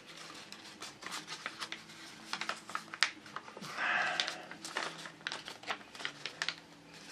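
A folded sheet of printer paper crinkles and crackles as fingers handle it and work its creases open, giving many sharp little crackles. About four seconds in there is a longer rustle as the paper slides.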